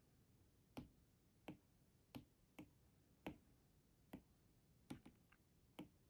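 Apple Pencil tip tapping on an iPad's glass screen: about nine light, sharp taps at an uneven pace, a couple of them in quick pairs, over faint room tone.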